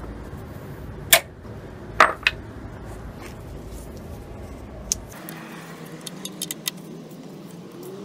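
Metal clicks and clinks of an Allen key working a brake caliper's mounting bolt: three sharp clicks in the first half, then a few lighter ticks later on.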